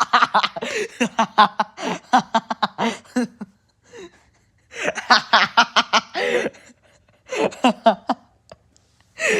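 Several cartoon voices laughing in wheezing, snickering fits, in three bursts with short pauses between.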